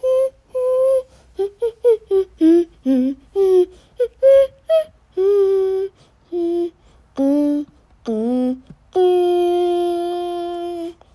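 A child singing a tune in short syllables that the recogniser took no words from, ending on one long held note.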